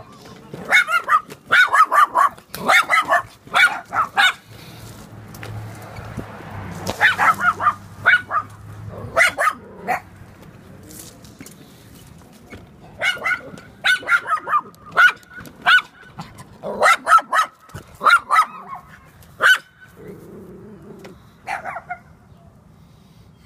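Several small dogs barking at a person on foot, in rapid volleys of sharp barks with short pauses between them.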